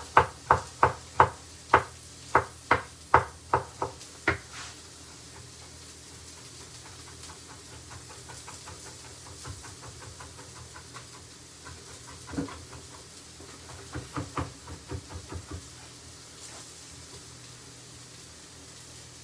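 Chef's knife chopping cauliflower into rice-sized pieces on a wooden chopping board: a quick, even run of knocks, about two to three a second, for the first four seconds, then softer scattered chops with short flurries about twelve seconds in and again around fourteen to fifteen seconds.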